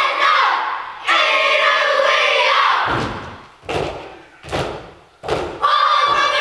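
A group of children chanting together in Māori during a kapa haka performance. About halfway through the chant stops for four loud unison thumps, evenly spaced. The chanting then starts up again near the end.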